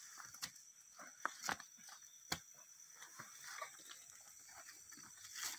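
Faint scuffling and shuffling of people grappling, with a few sharp knocks and taps, over a steady high chirr of insects.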